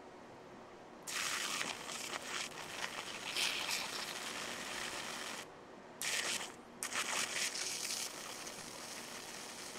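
High-voltage arcs from a ZVS driver crackling across the charred surface of a CD, in bursts: starting about a second in, cutting out briefly twice, and stopping about eight seconds in.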